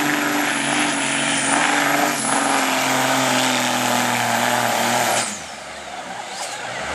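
Altered stock semi truck's diesel engine under full load with a steady, heavy drone while pulling a sled. It cuts off sharply about five seconds in, followed by a falling whine as it winds down.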